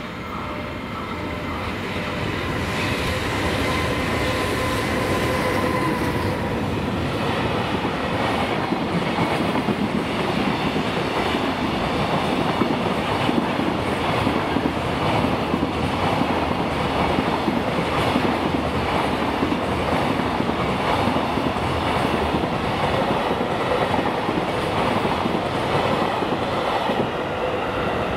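Container freight train, hauled by an EH500 electric locomotive, passing close by: steady whining tones for the first few seconds as the locomotive goes past, then the wagons' wheels clattering over the rail joints in a regular clickety-clack.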